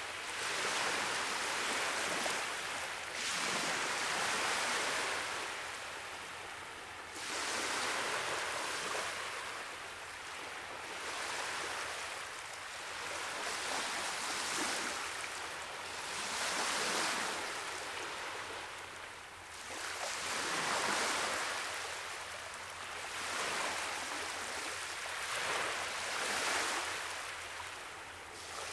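Ocean surf washing against rocky shore, a steady rush that swells and fades every few seconds as waves come in.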